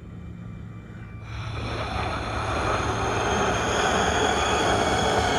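A man's enraged, drawn-out scream, over a rushing noise that swells from about a second in and keeps growing louder.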